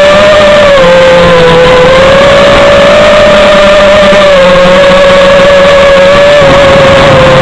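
Electric motors of an FPV radio-controlled aircraft whining steadily, the pitch drifting slightly up and down with the throttle, over a loud rushing noise of wind and propeller wash.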